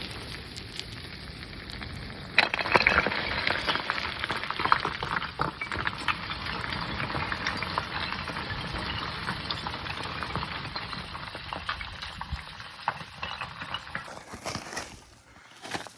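Scrambling on a loose rock slide: scree and small stones crunching, scraping and clattering underfoot and under hand in a dense crackle. It gets louder about two and a half seconds in and dies away near the end.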